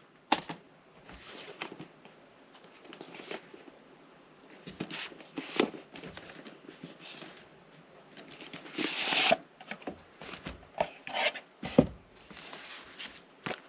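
Hands handling a collector's box set's packaging: rustles of cardboard and paper with scattered light taps and knocks, a longer rustle about nine seconds in.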